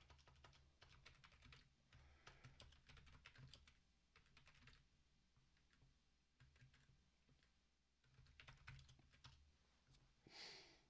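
Faint computer keyboard typing: bursts of quick key clicks with short pauses between them.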